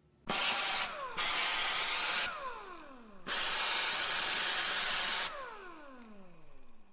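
Cordless power driver spinning in three runs, short, longer, then longest, as it tightens the disc brake rotor bolts onto the hub. After each run it winds down with a falling whine.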